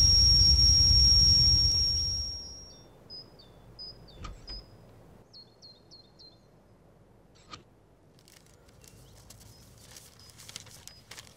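A vehicle's engine rumble with a steady high whine fades away over the first two seconds or so. Birds then chirp briefly, and a few light clicks follow as a metal roadside mailbox is handled.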